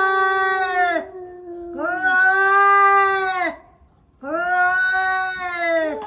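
Cat yowling in long, drawn-out caterwauls: three held wails with short breaks between them.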